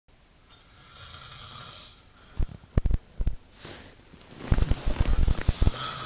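A man snoring in his sleep: a soft breath, then three short loud snorts about two and a half to three seconds in, and a longer fluttering snore near the end.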